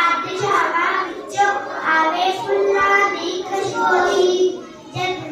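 A child singing.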